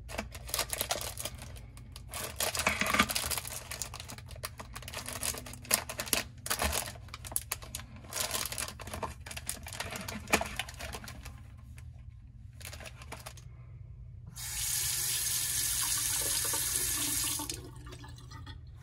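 Plastic wrappers on packaged toothbrushes and razors crinkling as they are handled, in irregular bursts. Later, a bathroom basin tap is turned on and water runs steadily into the sink for about three seconds, then stops.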